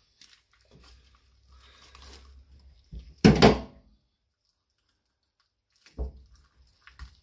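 Secateurs snipping and crunching through a woodpigeon carcass, faint at first. Then a loud thud about three seconds in and softer knocks near the end, as the bird and tools meet the wooden chopping block.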